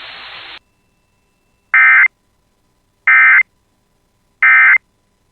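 Three short bursts of EAS SAME data tones, a buzzy warble about a third of a second long, repeated about a second and a third apart. This is the end-of-message (EOM) code that closes an Emergency Alert System warning.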